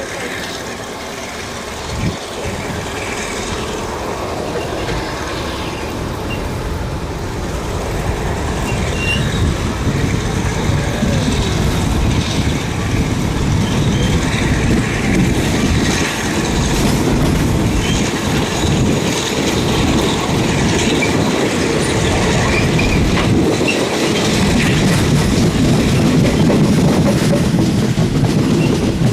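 Thai Railway third-class ordinary train running, heard from inside the open-windowed carriage: a steady rumble of wheels on the rails with the clatter of the wheels over the rail joints, growing gradually louder. A single sharp knock about two seconds in.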